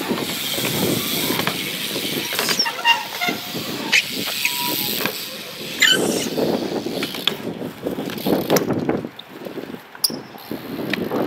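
BMX bike tyres rolling on concrete skatepark ramps, a continuous rough rolling noise that swells and fades as riders pass, with a few sharp clicks and knocks from the bikes.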